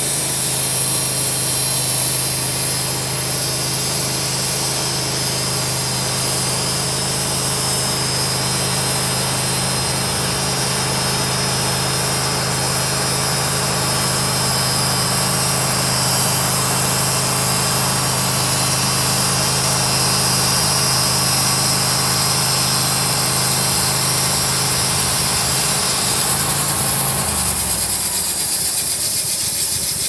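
Portable band sawmill running with its engine at steady speed while the band blade saws through a poplar log, a steady high whine over the engine note. Near the end the engine note drops and falls away.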